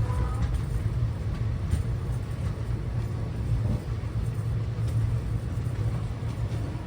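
Steady low rumble of a train at a railway station platform.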